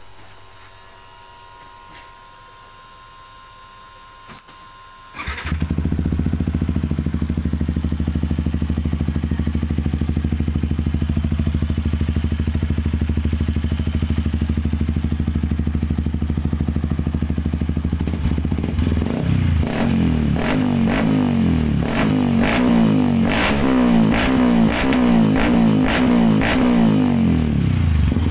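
Yamaha WR155R's 155 cc single-cylinder engine, breathing through a Norifumi aftermarket exhaust pipe, starting about five seconds in and idling steadily. From about two-thirds of the way through it is revved in repeated quick throttle blips, then drops back to idle near the end.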